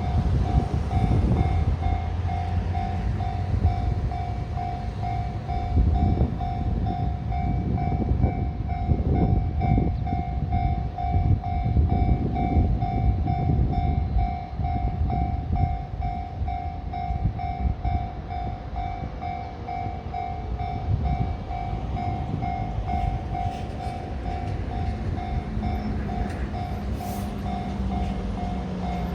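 Japanese level-crossing signal ringing its electronic bell, an even tone repeated about two times a second, while a freight train rolls slowly past with a low rumble.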